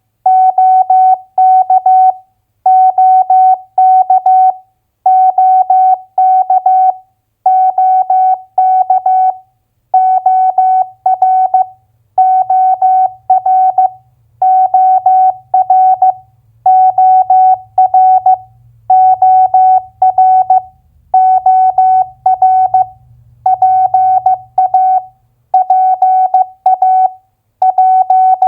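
Morse code at 15 words per minute: a steady mid-pitched tone keyed on and off in dots and dashes, sending two-letter US state abbreviations one after another. Each abbreviation lasts just under two seconds, with a short pause between them.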